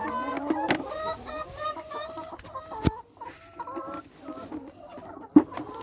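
Chickens clucking, with a quick run of short calls at first and then sparser ones. A few sharp knocks sound among them, the loudest near the end.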